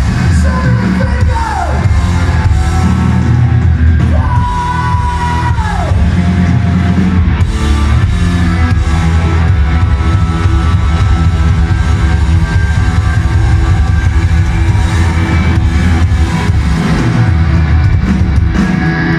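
Hard rock band playing live and loud, with electric guitars, drums and vocals, heard from the crowd in a large hall. In the first few seconds several held high notes slide down in pitch, then the full band plays on steadily.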